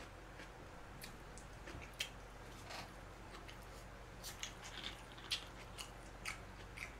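Faint eating sounds close to the microphone: scattered short wet clicks and smacks of chewing. Near the end come a few light clicks as a plastic soda bottle is handled.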